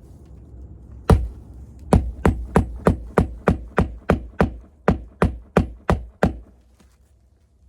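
Hammer driving a roofing nail through an asphalt shingle to hold it down: one strike about a second in, then a steady run of about fourteen blows at roughly three a second that stops near the end.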